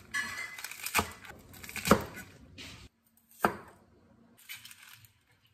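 Chef's knife chopping leafy greens on a cutting board: a few sharp knife strikes on the board, about a second apart.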